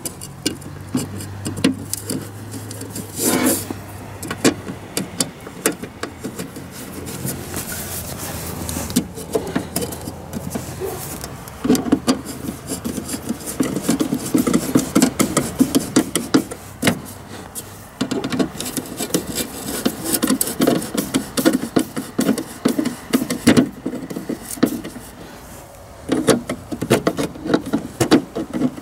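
Screwdriver turning screws to fasten a licence plate onto a truck's front plate bracket, in several spells of quick clicking and scraping with short pauses between.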